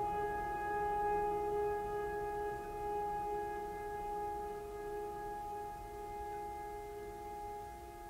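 Background music: one long held tone with several overtones, slowly fading.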